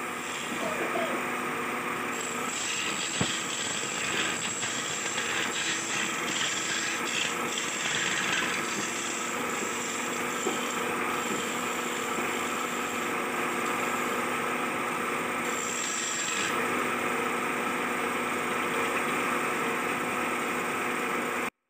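Belt-driven wood lathe running with a steady hum while a long hand-held chisel cuts a spinning wooden cot leg. A scraping hiss from the cut comes in about two seconds in and stops about sixteen seconds in, leaving the lathe running on its own; the sound cuts off abruptly at the very end.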